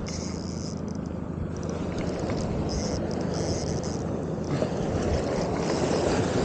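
Sea surf washing onto the shore and wind buffeting the microphone, swelling a little toward the end as a wave breaks close by, with a low steady hum underneath.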